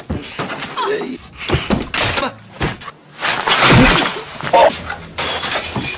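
Crashes and smashing from a staged fight, several sudden impacts with a long, loud crash about three to four seconds in, mixed with brief shouts.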